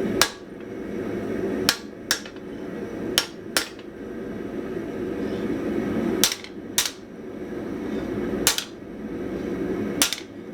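Hammer striking hot spring steel on an anvil, forging away the rounded surface of the old leaf spring. There are about nine sharp blows, mostly in pairs a fraction of a second apart, with gaps of one to three seconds between pairs, over a steady noise.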